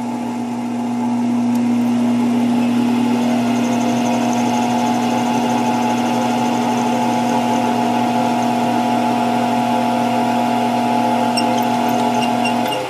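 Small metal lathe, driven by a treadmill motor, running at a steady pitch while facing the end of the shaft stock. It gets slightly louder about a second in and stops near the end.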